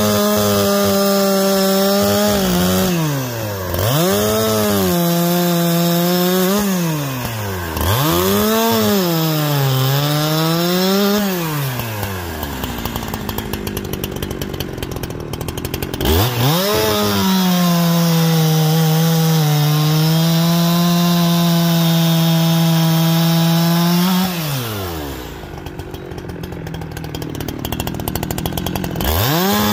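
Farmertec Holzfforma G372XP chainsaw, a 71cc two-stroke clone of the Husqvarna 372XP, with a new chain, cutting maple logs. It makes several short full-throttle cuts with the pitch sagging under load, drops to idle for a few seconds, then makes one long cut. It falls back to idle and revs up again near the end.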